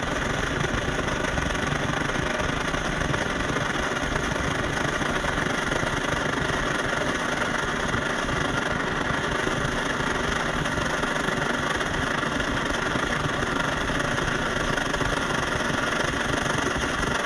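MSR Firefly liquid-fuel stove burner running with a steady hiss, still warming up after priming and not yet fully going.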